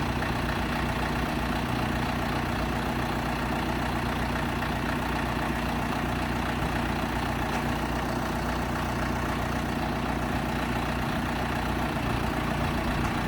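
Heavy equipment engine running steadily at idle, an even low hum with no change in speed.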